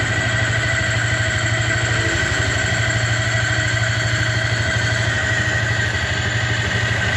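Yamaha Vixion's single-cylinder four-stroke engine idling, with a steady high whine over it that is likened to a pump whining on and on. This is the strange noise, which comes and goes, that the bike was brought in for.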